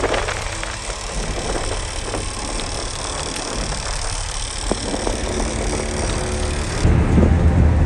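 Fishing boat's engine running with a steady rush of wind and sea. About seven seconds in it changes to a louder, deeper rumble.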